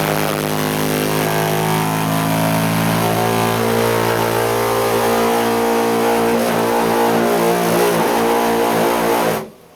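Takagi gas tankless water heater caught in a very loud, low-toned harmonic vibration: a steady horn-like drone with many even overtones, which cuts off suddenly near the end. It is a recurring fault, an annoying noise that does not stop once started until the water is turned off and back on.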